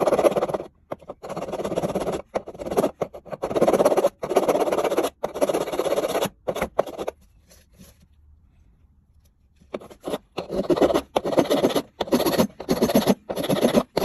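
Metal file rasping against the corroded steel handle of an old pocket knife in repeated back-and-forth strokes, with a pause of a few seconds midway: the rust and old paint are being filed off.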